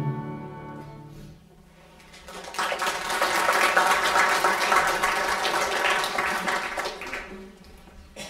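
A 120-bass accordion's final held chord fading out over the first second and a half, then an audience applauding for about five seconds, dying away near the end.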